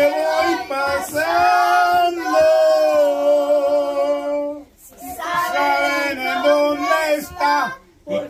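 A man and several women singing a Mexican ranchera together, unaccompanied. They sing long phrases, holding one note for about two seconds in the middle, with a short break for breath about five seconds in.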